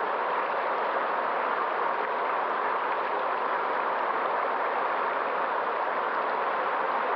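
River water flowing, a steady rushing with no separate splashes or changes.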